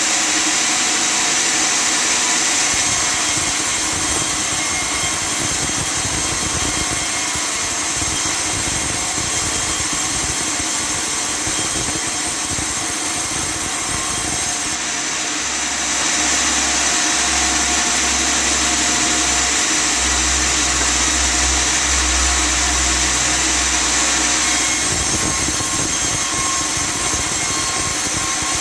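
Table sawmill running steadily as it saws through sebitan wood, its motor and blade making a loud, continuous, high-pitched mechanical noise. The low hum changes from about fifteen seconds in to about twenty-five seconds in.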